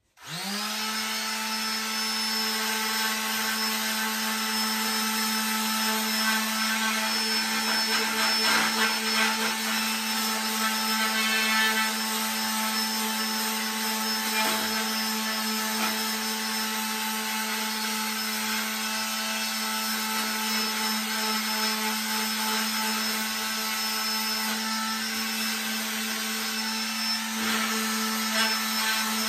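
Electric hand sander spinning up, then running steadily with a constant hum while it sands glass-fibre filler on a metal caravan side panel.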